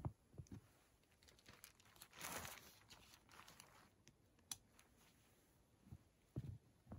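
Faint footsteps in snow, a few soft thumps near the start and several more near the end as he walks off, with a brief rustle about two seconds in and a few light clicks while pitching a nylon tent.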